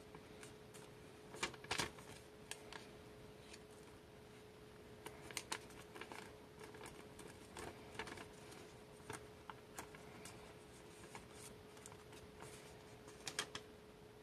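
Origami paper being handled and pressed into folds by hand: faint paper rustling with scattered crisp crinkles and ticks, a few louder crackles about a second and a half in and again near the end.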